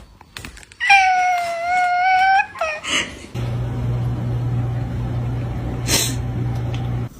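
A cat giving one long, drawn-out meow that falls slightly in pitch, then a short cry. After that a steady low hum runs for a few seconds, with a sharp click near the end before it cuts off suddenly.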